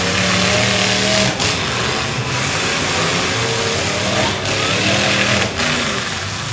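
Engines of several demolition derby trucks running and revving together, a loud dense mix whose pitches rise and fall as the drivers work the throttles.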